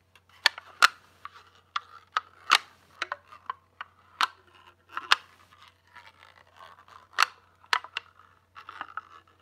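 Fingernails tapping and scratching on the textured lid of a plastic tub of body cream: sharp clicks at uneven intervals, one or two a second, with faint scratching between them.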